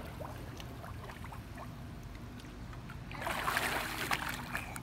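Muffled underwater sound through a submerged phone microphone, a low rumble with faint clicks. About three seconds in, a burst of pool water splashing as the baby is lifted out of the water.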